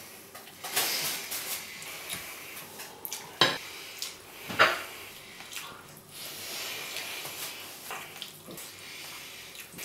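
Messy eating from a plate: a spoon clinking and scraping against the plate, with two sharp clinks about three and a half and four and a half seconds in, and soft wet handling noises as food is scooped up by hand.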